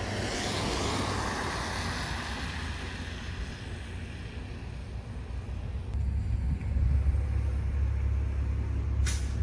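A car passing on the road, its tyre noise fading away, then wind rumbling low on the microphone from about two-thirds of the way in.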